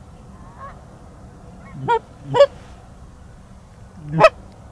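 Canada goose honks: three loud, short honks that rise sharply in pitch, two close together about two seconds in and one near the end, with fainter honks between them.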